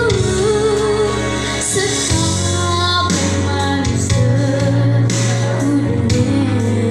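A girl singing a Banten regional song into a microphone over instrumental accompaniment, her voice wavering in pitch above steady held bass notes.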